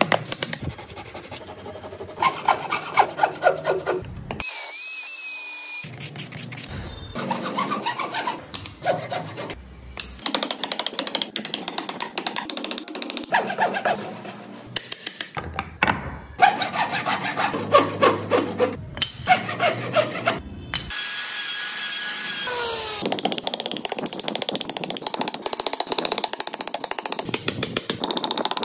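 Hand tools working solid wood in short clips one after another: a chisel tapping and cutting, a handsaw rasping through a block in repeated strokes, and a chisel paring off curls of wood.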